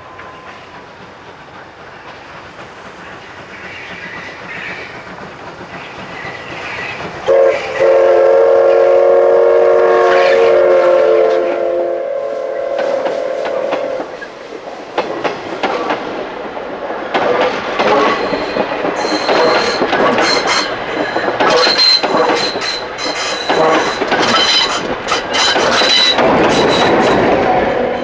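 C11 steam locomotive approaching and growing louder, then sounding its steam whistle in one long blast of about five seconds. Its passenger coaches then pass close by, the wheels clattering over the rail joints with a faint high squeal.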